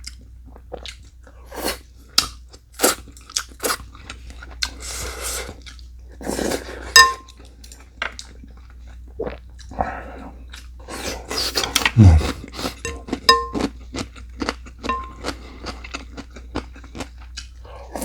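A person chewing and crunching food in an irregular run of crunches, with a few short clinks of cutlery against dishes.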